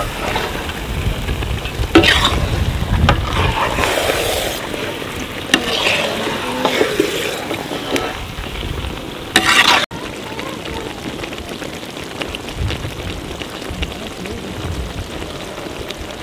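A flat metal ladle scraping and stirring thick goat-leg gravy in a black iron kadai, the gravy sizzling. The scraping stops about ten seconds in, leaving a steady, quieter sizzle.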